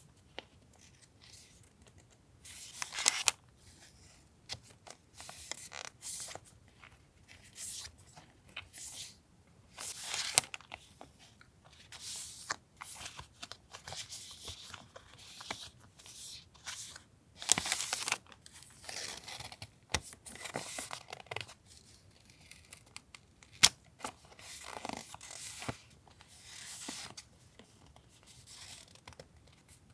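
Paper and plastic packaging being handled and unwrapped: irregular short crinkles and rustles, with a few sharp clicks.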